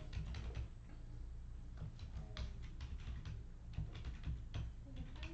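Computer keyboard being typed on in irregular, faint clicks.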